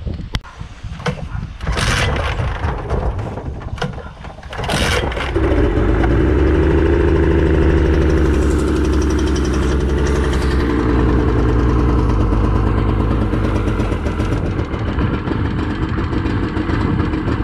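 Yamaha three-carburettor outboard motor being started: a few short cranking attempts, then it catches about five seconds in and runs steadily. This is its first start-up, and the water pump is not pushing cooling water through the leg.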